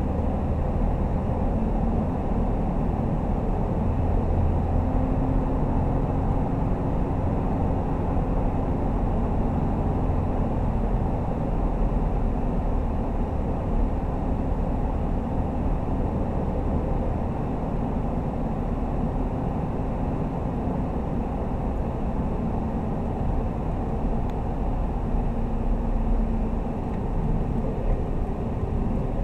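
Scion FR-S's 2.0-litre flat-four engine and tyres heard from inside the cabin while driving: a steady low drone, the engine note drifting slightly up and down.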